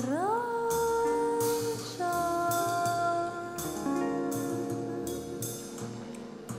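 A band playing an instrumental passage: a sustained melodic note slides up in pitch right at the start and then moves between long held notes, over drums and cymbals.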